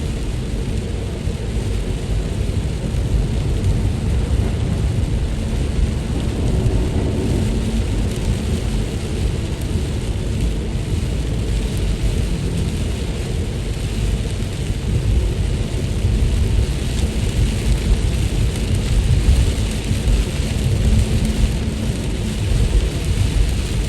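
Steady rain falling, an even hiss with a constant low rumble underneath.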